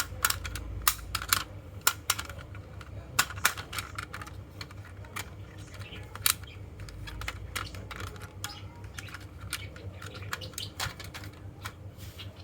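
Marbles clicking and clacking as they run down a marble run, many sharp, irregular clicks over a low steady rumble.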